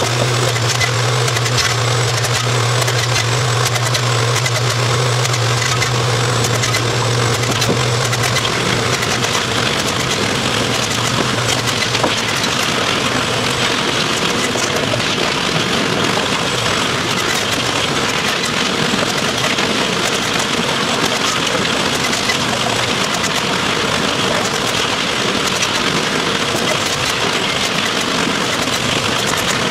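Shop machinery running steadily, with wooden stakes clattering and knocking as they are handled and stacked. A low machine hum drops out about nine seconds in.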